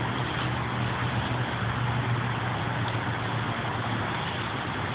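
Steady low mechanical drone under an even hiss, like urban traffic or a machine running nearby.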